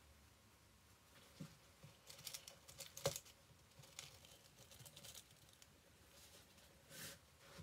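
Near silence with faint scattered clicks and taps, the sharpest about three seconds in: gloved hands and a small tool working the wet hide around the eye of a black bear shoulder mount.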